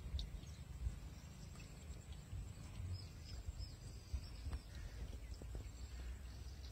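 Outdoor ambience: a steady low rumble, with a short run of faint, high bird chirps about three seconds in.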